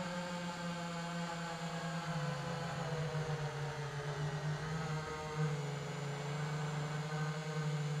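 iFlight Titan DC5 FPV quadcopter's brushless motors and propellers whining, heard through the drone's own onboard recorder. The pitch drops at the start, holds mostly steady, and dips and rises briefly about four to five seconds in as the throttle changes.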